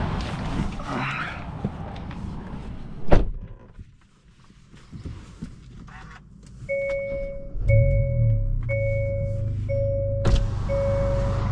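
A car door shuts with a single loud thunk about three seconds in. Inside the cabin a warning chime then sounds about once a second, and about two thirds of the way in the Hyundai i20 N's engine starts and settles into a steady idle under the chimes.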